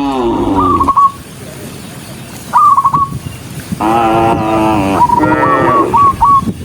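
Cattle mooing: one moo falling in pitch tails off in the first second, then two more moos come about four and five and a half seconds in. Between the moos come bursts of short, high whistled notes.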